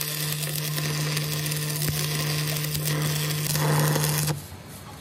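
A workshop machine runs with a steady low hum under a hissing, crackling noise, then cuts off suddenly near the end.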